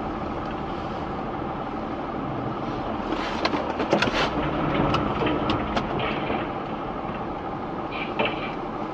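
Steady engine and road noise inside a moving car's cabin on a slushy road. Scattered sharp clicks and knocks come through the middle of the stretch.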